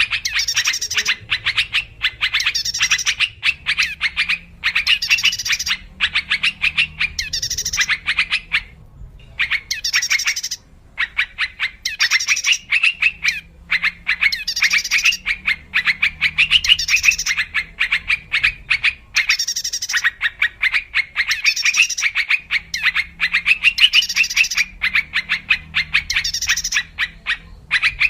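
Yellow-vented bulbul (trucuk) calling: rapid chattering phrases, each a second or two long, repeated over and over with short breaks, a recording played as a lure call to draw in wild birds of the same species.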